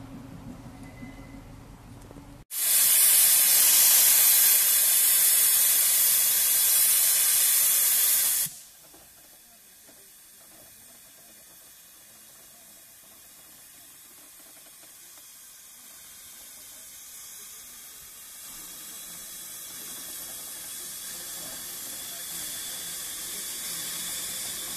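Hunslet saddle-tank steam locomotive NCB No. 49 standing with steam escaping. A loud hiss starts suddenly a couple of seconds in and cuts off sharply about six seconds later. A much softer hiss follows and slowly grows louder.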